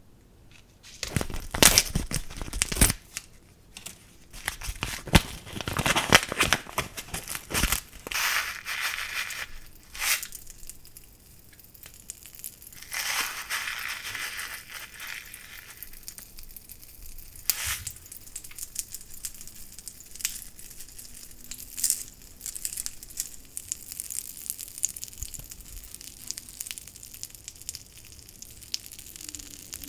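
Pop Rocks candy packet crinkled and torn open close to the microphone, with loud rustles in the first ten seconds. Around 13–15 s there is a hissing pour of the candy into a tub of Play-Doh slime, and after it come softer scattered ticks and crackles.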